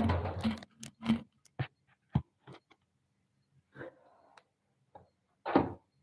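Pigeon wings flapping in a short flurry as a bird flies across the loft, followed by scattered light taps and clicks, and another brief flurry about five and a half seconds in.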